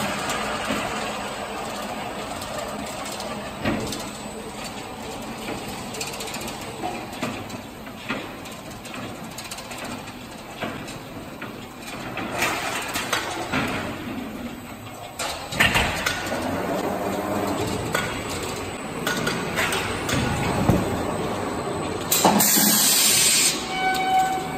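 Machinery of a fiber-cement-board painting line running: continuous conveyor and roller noise with scattered clacks and knocks. A loud burst of hiss comes about two seconds before the end.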